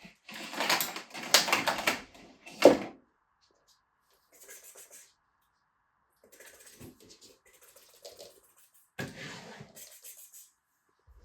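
Rustling and scraping of household objects being handled during tidying. A sharp knock comes near the end of the first three seconds and is the loudest sound. Fainter, scattered handling noises follow.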